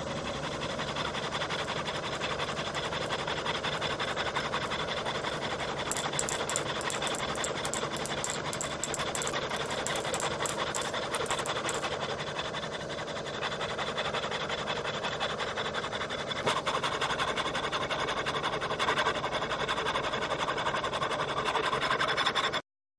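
Die filer running, its file reciprocating as it cuts steel: a steady mechanical clatter, with several seconds of rapid sharp ticking in the middle. It cuts off abruptly near the end.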